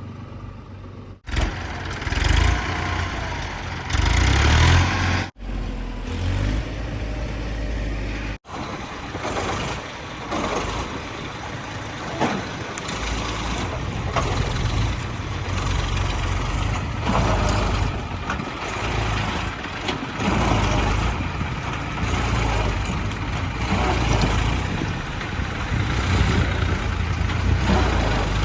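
Diesel engine of a JCB 3DX backhoe loader working under load, its level rising and falling as it digs and loads. The sound cuts out sharply three times in the first eight seconds.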